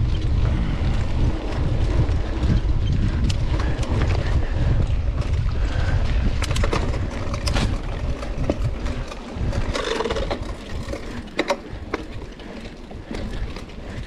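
Wind buffeting the microphone of a camera carried on a mountain-bike ride, with scattered clicks and rattles from the bike over the trail; the wind rumble eases after about nine seconds.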